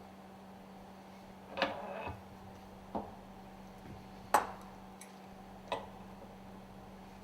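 Small metal valve parts clinking and knocking four times as the valve is taken apart by hand; the third knock is the loudest. A steady low hum runs underneath.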